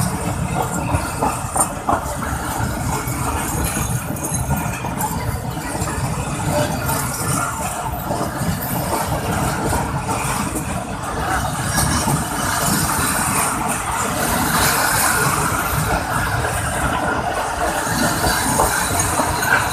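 Pakistan Railways passenger coaches rolling past close by: wheels running on the rails, with a steady rumble and many small clicks and rattles, a little louder in the second half.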